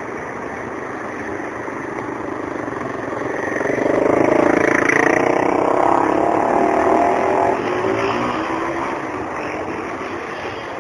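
Street traffic noise with a motor vehicle passing close by: its engine swells about three to four seconds in, holds, then drops in pitch and fades as it moves off.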